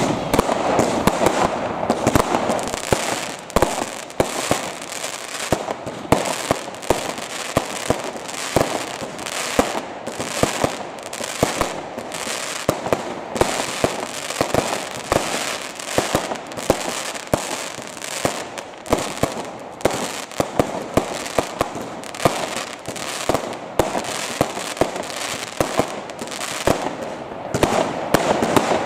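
Fireworks display: a continuous barrage of aerial shell bursts and crackling, with several sharp bangs a second.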